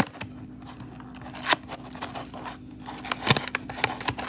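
Power bank packaging being opened by hand: light rustling and scraping of the box and plastic, with a few sharp clicks, near the start, about a second and a half in and again near three seconds in. A steady low hum runs underneath.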